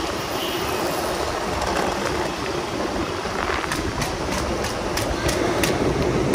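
Longboard wheels rolling on city pavement with a steady rumble. From about halfway in, sharp clacks come about three times a second.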